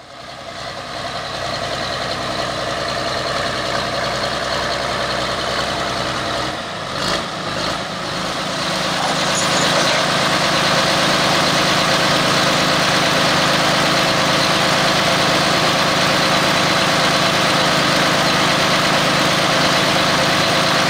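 Engine of a White 125 Work Horse pulling tractor idling steadily, getting a little louder about eight seconds in.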